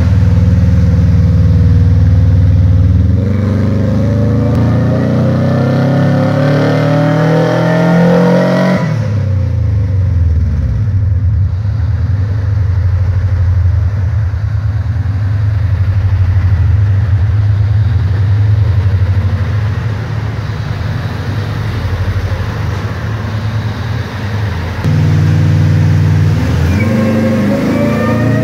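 Supercharged Honda D15 four-cylinder on a chassis dyno, breathing through an unequal-length header and a Blackwidow Venom 250 muffler. The revs hold steady, then climb for about six seconds in a dyno pull and cut off suddenly. The engine drops to a lower drone, and near the end it comes up loud again and starts a second climb.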